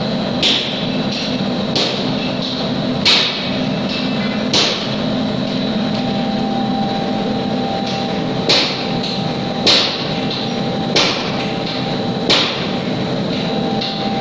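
Gravure cylinder grinding machine grinding a copper-plated cylinder: a steady mechanical hum with sharp clicks about every second and a half.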